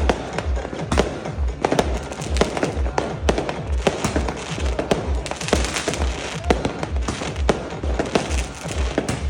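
Fireworks and firecrackers going off in quick irregular bangs and crackles throughout. Underneath is music with a steady bass beat.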